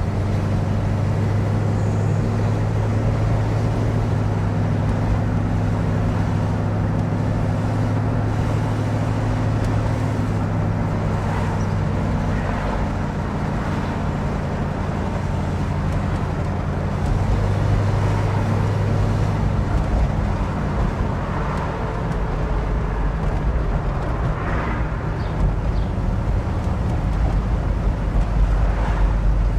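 A 1969 Shelby GT500's 428 Cobra Jet V8 running under way, heard from inside the cabin: a steady low rumble whose note shifts about two-thirds of the way through, with road noise beneath.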